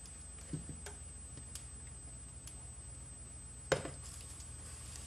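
Faint kitchen handling noises as an egg-battered chile is lifted from a plastic mixing bowl over a frying pan: a few light ticks, then a sharper knock a little under four seconds in, followed by a soft hiss. A low steady hum runs underneath.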